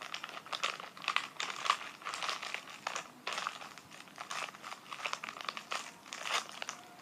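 Plastic packaging crinkling and rustling as a squishy toy is unwrapped by hand, with many irregular crackles.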